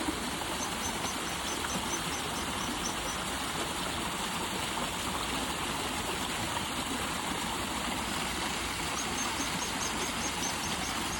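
River water rushing over a shallow stretch, a steady even noise. Faint high chirps repeat a few times a second near the start and again near the end.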